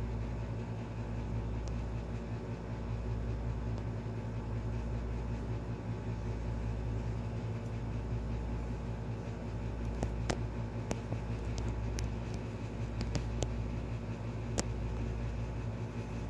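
Steady low mechanical hum with a constant hiss, and a scatter of about ten sharp clicks in the second half.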